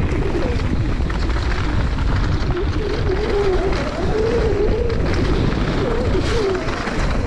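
Mountain bike ridden fast down a rough downhill trail: wind rushing over the camera's microphone, tyres on dirt and the bike rattling over bumps, with a whirring tone that wavers up and down in pitch.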